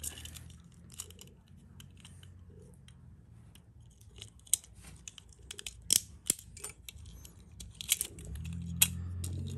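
Small sharp plastic clicks and light crinkling as Beyblade parts and their plastic packaging are handled, with a low hum coming in louder near the end.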